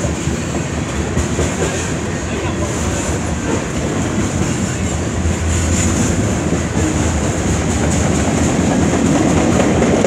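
A CN freight train's cars rolling past, tank cars, covered hoppers and boxcars clattering steadily over the rails. The sound grows a little louder toward the end.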